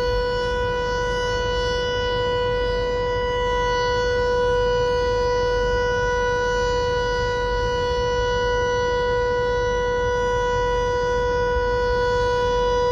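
American Signal Corporation T-112 outdoor tornado siren sounding one steady tone at full speed, its pitch holding level without rising or falling, over a low rumble.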